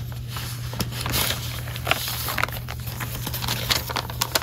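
Paper rustling and crinkling as a manila envelope and the papers in it are handled. It comes as a scatter of short, irregular rustles and clicks.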